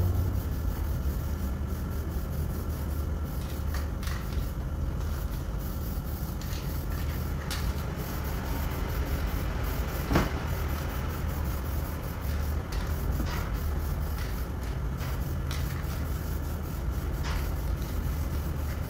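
Steady low rumble of a vehicle workshop, with scattered light clicks and knocks as the rear bumper corner of a bus is handled, and one sharper click about ten seconds in.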